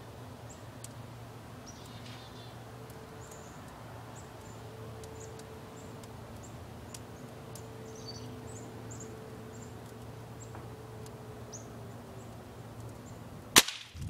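A pellet gun fires once near the end with a single sharp crack, far louder than anything else. Before the shot there is only a steady low hum and faint high chirps.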